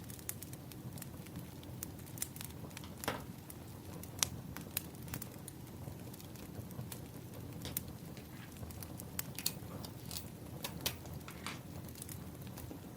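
Burning firewood crackling, with irregular sharp pops over a low steady rumble.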